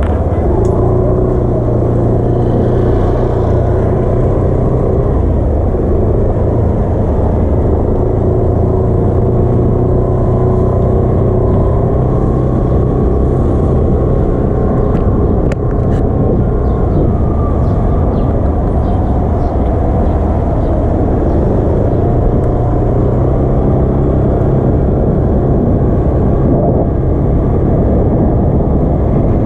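Suzuki Burgman 125 scooter's single-cylinder engine running steadily while riding, mixed with wind and road rush on the onboard microphone.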